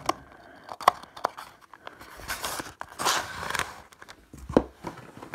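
Handling noises from an Umnaya Bumaga cardboard model box wagon on a wooden table: scattered light clicks and taps, a rustling scrape in the middle as the wagon is turned back onto its wheels, and a soft thump near the end.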